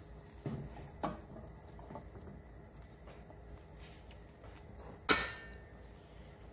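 A few faint taps of a spatula in a nonstick frying pan, then one sharp clack of kitchenware about five seconds in.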